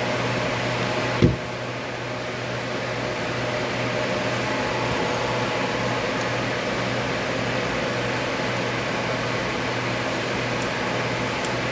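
Steady fan-like hum and hiss of room noise, with a single short knock about a second in.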